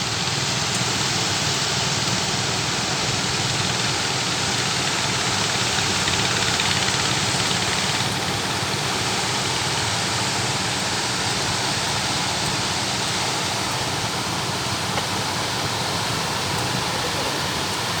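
Small fishing boat's engine running steadily, nearly buried under a loud, even rush of wind and water.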